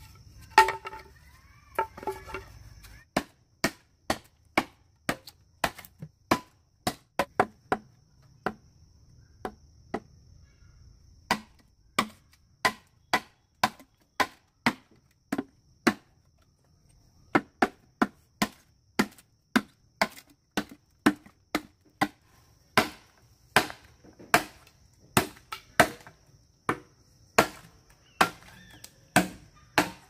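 Repeated chopping, a blade striking wood over and over at about one to two strokes a second, with a couple of short pauses. A brief pitched call sounds near the start.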